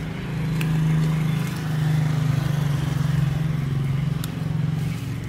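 A road vehicle's engine running with a steady low hum that swells in level about half a second in and again around two seconds in.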